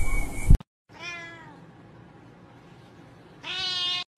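A domestic cat meowing twice. The first meow, about a second in, is short and falls in pitch. The second, near the end, is louder and longer. A brief loud noise at the very start cuts off abruptly about half a second in.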